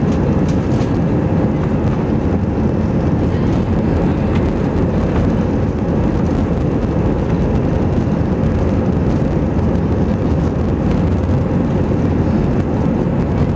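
Airbus A321 cabin noise from a window seat over the wing as the aircraft rolls along the ground: a steady, loud low rumble of the jet engines and airframe, with no rise in pitch or level.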